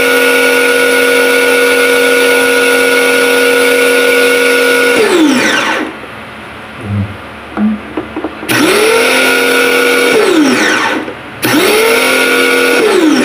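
Bosch Easy Aquatak 100 electric pressure washer's 1100 W motor and pump running with a steady hum and hiss, then winding down with falling pitch about five seconds in as the spray gun's trigger is let go. After two soft knocks it starts twice more in short runs of about two seconds, each spinning up quickly and winding down again.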